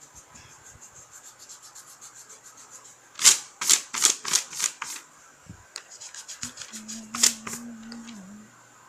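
A pencil's rubber eraser scrubbing back and forth on lined notebook paper to rub out a pencil sketch. It starts as quick light strokes, with louder, harder scrubbing about three to five seconds in and again near seven seconds. Someone hums a low tune over the last two seconds.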